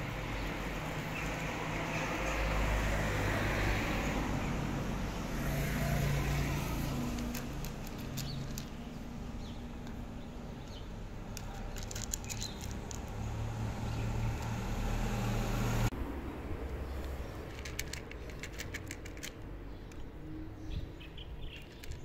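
A cat crunching dry kibble: irregular runs of short crisp clicks over a steady low background rumble that is loudest in the first few seconds.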